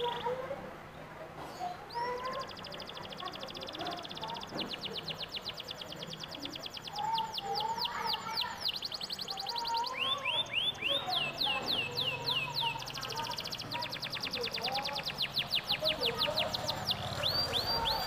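Canary singing long rolling trills of quick, falling whistled notes, switching to a new trill every few seconds.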